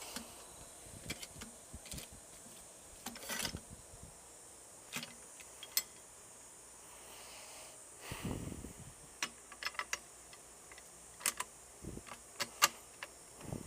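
Scattered metal clicks, clinks and knocks of parts and tools being handled on a Rabaconda manual tire changer while it is set up on a motorcycle wheel. A longer, duller rubbing noise comes about eight seconds in.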